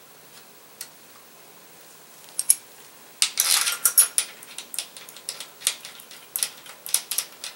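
Small metal bolts and parts clicking and clinking against the plastic-and-metal valve body of a Mercedes 722.6 automatic transmission as they are set in place by hand: a couple of clicks about two seconds in, then a quick run of sharp clinks from about three seconds in.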